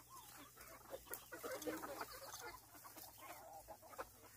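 A flock of chickens clucking softly, many short calls overlapping, busiest around the middle.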